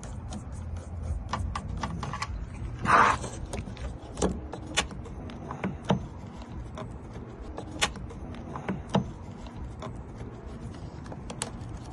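Scattered sharp metallic clicks and taps of hand tools and loose lock parts while the door lock cylinder of a 2007 Toyota Camry is worked loose from its one retaining screw, with a short rasp about three seconds in.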